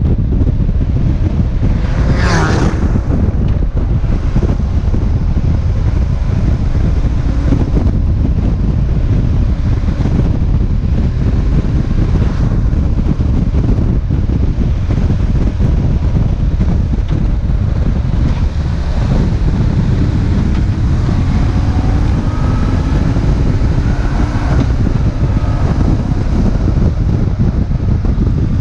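Heavy wind rumble on the microphone of a moving motorcycle, with the BMW R1150GS's air-cooled boxer twin running underneath; the engine pitch climbs several times in the second half as it accelerates. A brief sweep falling in pitch about two seconds in.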